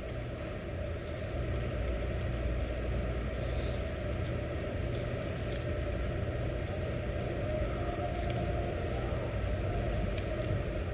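Meat sizzling on a tabletop yakiniku grill, with faint crackles, over a steady low rumble.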